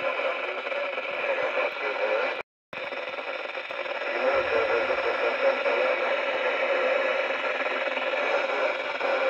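Thunderpole T-2000 CB radio's speaker hissing with static from a weak, noisy FM signal, cutting out for a split second about two and a half seconds in.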